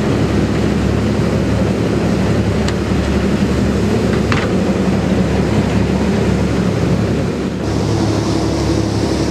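A boat's engine running steadily under way, a low drone with water rushing along the hull, and a couple of brief knocks in the middle. Near the end the sound changes abruptly to the engine with more hiss of the churning wake.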